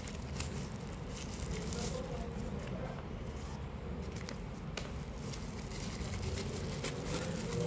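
Paper and plastic packaging being handled during unboxing: faint rustling with scattered small clicks and scrapes.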